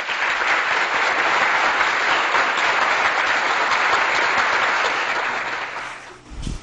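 Applause, a dense steady clapping that holds for about six seconds and then fades out, with a short low thump just before the end.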